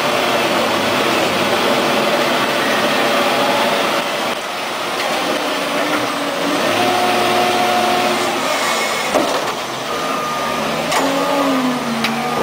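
Bulldozer's diesel engine running steadily at work, a loud continuous mechanical noise.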